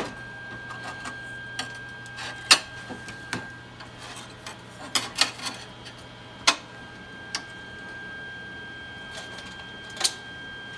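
Scattered clicks and light clinks of small flat steel pieces being handled and set down on a workbench, a handful spread over the time. Under them runs a steady high electrical whine with a low hum.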